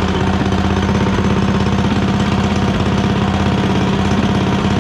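Coleman CT200U minibike's small single-cylinder engine running steadily at idle, with an even, rapid firing pulse.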